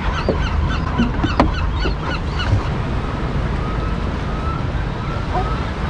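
Seabirds calling in a rapid series of short, high calls, about four a second, that fade out about halfway through, over a steady low rumble of wind and water.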